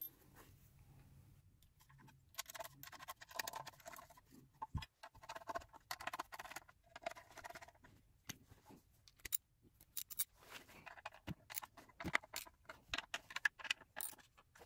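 Faint, irregular runs of small metallic clicks and taps from a socket tool and bolts as the bolts are threaded back into the secondary air pump's bracket.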